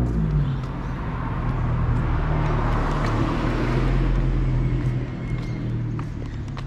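A car drives past, its tyre and engine noise swelling to a peak about three to four seconds in and then fading, over a steady low engine hum.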